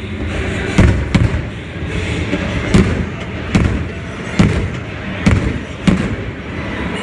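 Aerial fireworks bursting: about seven sharp booms at irregular intervals, some in quick pairs, over a steady background rumble.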